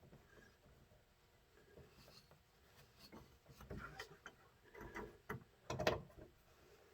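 Scattered light clicks and knocks from hands and tools working the bolts and brace of a truck's grille assembly. The knocks come close together from about three and a half seconds in, and the loudest comes just before six seconds.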